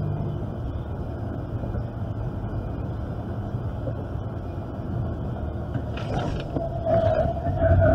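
Steady road and engine noise of a vehicle driving at highway speed, heard from inside the cabin. A sustained higher tone comes in near the end.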